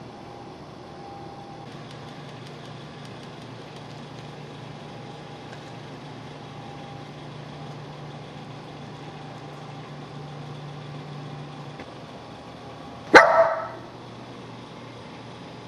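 A small dog gives one sharp bark about 13 seconds in, over quiet room noise. A faint low hum stops shortly before the bark.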